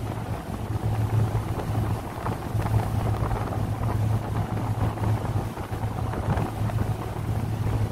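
Wind buffeting the microphone on the open deck of a Staten Island Ferry under way, over a steady low hum from the ferry. The mix is noisy and continuous.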